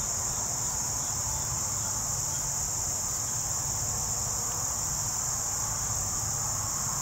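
A steady, high-pitched insect chorus trilling without a break, over a low rumble.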